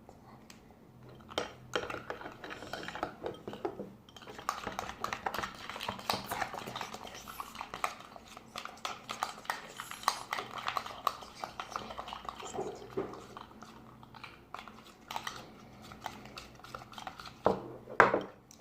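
A spoon stirring and scraping in a bowl, clinking rapidly against its sides while mixing slime, with one louder knock near the end.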